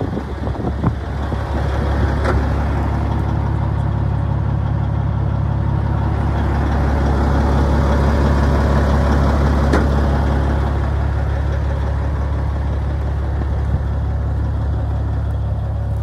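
Diesel engine of a 2006 Kenworth T600 truck tractor idling steadily, a deep even hum.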